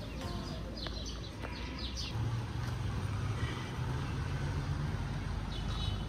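Small birds chirping in quick gliding notes, then the low, steady hum of street traffic from about two seconds in, with a few more chirps near the end.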